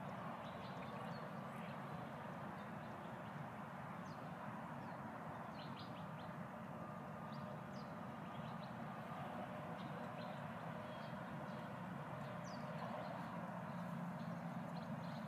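Steady outdoor background noise with scattered faint, short bird chirps.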